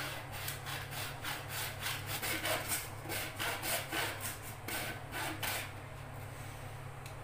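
Hacksaw blade in a homemade PVC-pipe frame cutting through a thick PVC pipe, with quick back-and-forth strokes about three or four a second. The sawing stops about a second and a half before the end.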